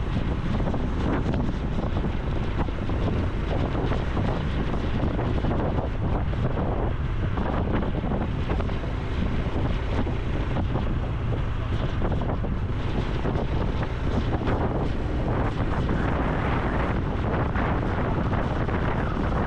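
Steady wind rush on the microphone of a moving motorcycle, with the Honda Super Cub C125's single-cylinder four-stroke engine and exhaust running underneath at an even cruising speed.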